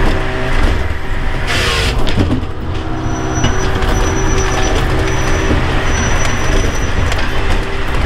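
A Bells 4000 firewood processor's engine and hydraulics running steadily, heard from inside the operator's cab, with a brief hiss about a second and a half in.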